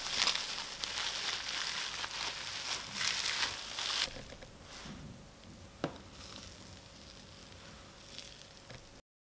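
Plastic cling film crinkling as it is pulled off a tub of risen dough, stopping abruptly about four seconds in. After that, quieter soft sounds of hands pressing into the dough, with a single sharp click about six seconds in.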